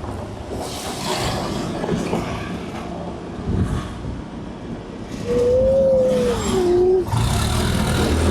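Road vehicle noise: a steady low engine hum with swells of traffic noise, which grows louder near the end. A single wavering tone rises and falls for a couple of seconds in the second half.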